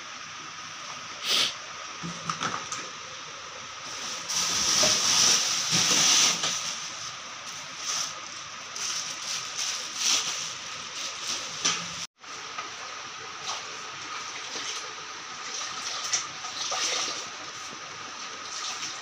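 Plastic sacks rustling and shoes being handled, in irregular bursts over a steady hiss, loudest a few seconds in. After a break about twelve seconds in, a shoe is scrubbed with a steel scrubber over a bucket of water.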